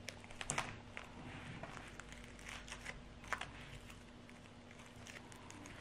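Thick pink slime being stretched and pulled by hand off a yellow balloon, giving scattered small sticky crackles and clicks, sharpest about half a second in and again just past three seconds.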